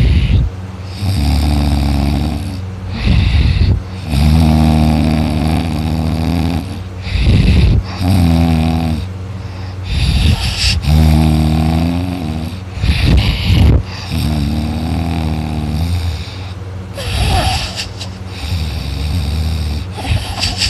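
A man snoring loudly in deep sleep, a cycle about every three seconds: a rough, rattling snore on each breath alternates with a drawn-out, pitched moaning sound.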